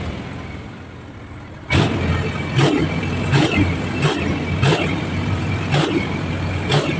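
Diesel truck engine running. About two seconds in it gets louder and is revved in a series of quick blips, roughly one a second. The engine is blowing thick black exhaust smoke, and its injector nozzles are due for cleaning.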